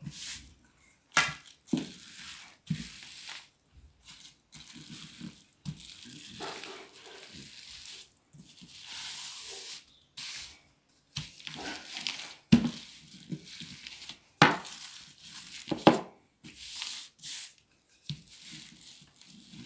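Wooden rolling pin rolling out a soft pastry dough on a cloth-covered table, with irregular knocks as the pin is set down and moved, and rustling and crinkling of the tablecloth as hands press and shift the dough.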